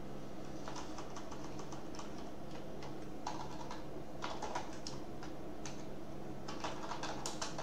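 Keystrokes on a computer keyboard, typed in short irregular bursts with pauses between them, over a faint steady hum.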